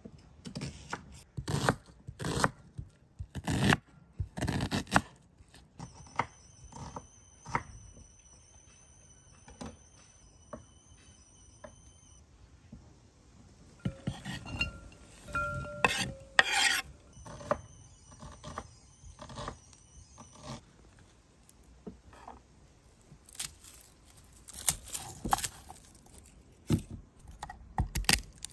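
Food preparation on a wooden cutting board: a knife knocking and tapping on the board, chopped onion scraped off the board into a ceramic bowl, and garlic cloves crushed and peeled with the knife. The sound is a string of separate knocks and scrapes with quiet gaps between them, busiest about halfway through and again near the end.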